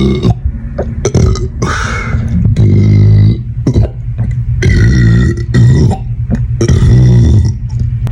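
A man belching a series of deep, drawn-out burps, about four one after another with short pauses between, low in pitch and rattling.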